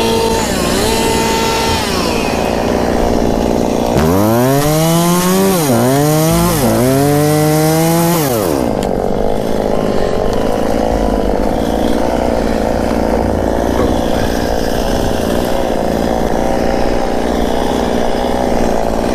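Two-stroke chainsaw cutting brush and small trees. It runs steadily, revs up several times with the pitch dipping under load in the middle, then carries on with a steady drone.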